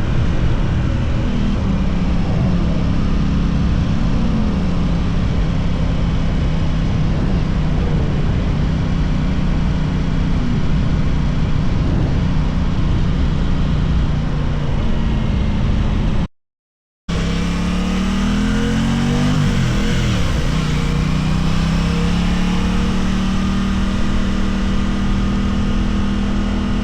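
Aprilia RS660 parallel-twin engine under way at fairly steady revs, with an even rush of noise underneath. The pitch shifts with the throttle. The sound cuts out completely for under a second about 16 seconds in. When it returns the revs dip and then climb back up.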